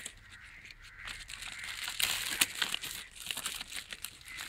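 Plastic courier mailer crinkling and crackling as hands pull it open and off a parcel, in quick irregular rustles, loudest about two seconds in.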